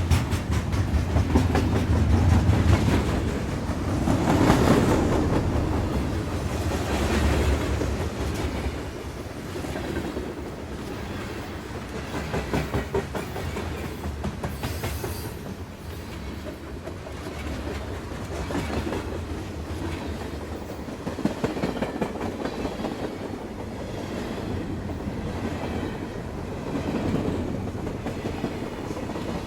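Train running along the track: a continuous rumble with the rapid clickety-clack of wheels over rail joints, swelling a little about four seconds in and then going on steadily.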